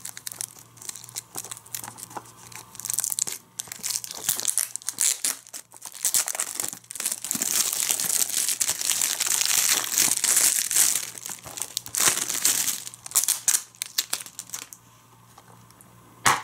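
Plastic shrink-wrap being torn and peeled off a Blu-ray case: irregular crinkling and crackling that is heaviest through the middle and quietens in the last few seconds. Near the end comes one sharp click, as the plastic case is snapped open.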